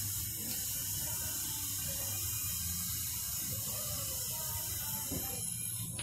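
A steady rushing hiss, strongest in the high treble, that cuts off abruptly at the end.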